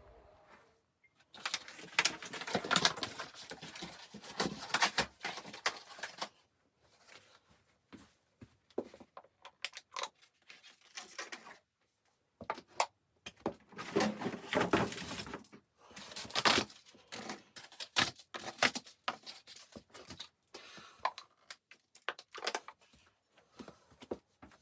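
Close handling noises: irregular crackling, rustling and sharp clicks in bouts of a few seconds, with short quiet gaps between them.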